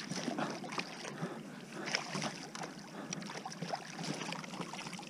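A hooked rockfish (striped bass) thrashing at the surface beside a kayak: irregular small splashes of water, with short knocks among them.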